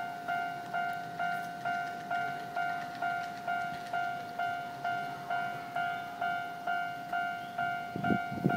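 Railway level-crossing warning bell ringing: an even, repeated ding of one pitch, about two strikes a second. A couple of low thumps come near the end.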